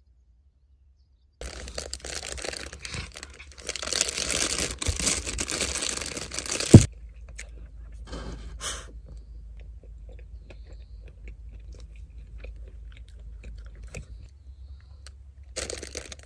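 Plastic bread wrapper crinkling loudly for about five seconds as it is handled and opened, ending in one sharp crack. After that come quieter rustles of the wrapper and crunchy chewing of bread.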